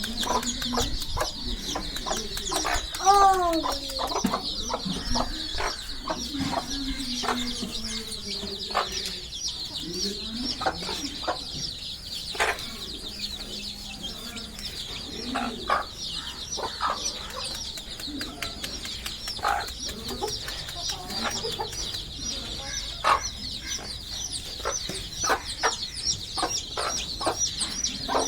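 A brood of chicks peeping continuously in rapid high chirps while a mother hen clucks in low, soft calls, with scattered short taps throughout.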